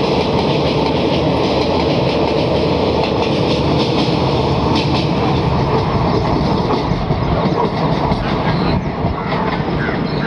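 The 02197 Coimbatore–Jabalpur special's passenger coaches rolling past over a steel girder bridge, wheels clattering in a steady clickety-clack over the rail joints. The clatter thins out near the end as the train draws away.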